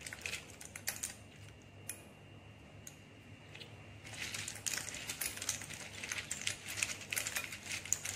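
Clam shells clicking and clattering against each other and a glass bowl as they are tossed by hand in dry spice powder. The clicking thins to a few scattered clicks after the first second, then picks up again and runs dense about halfway through.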